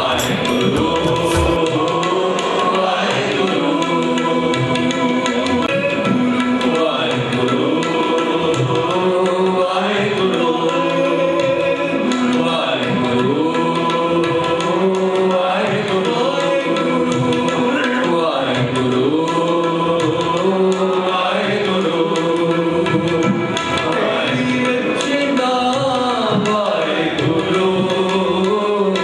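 Sikh kirtan: voices singing a devotional hymn to tabla accompaniment over steady held notes. The melody rises and falls in repeated phrases every few seconds.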